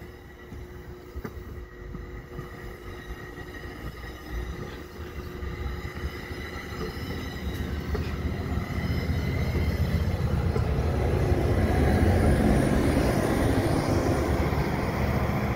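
Commuter train of Bombardier multilevel coaches rolling past while pulling out, wheels running on the rails with a few faint steady tones. The sound grows louder over the second half as the ALP45DP locomotive pushing at the rear comes alongside.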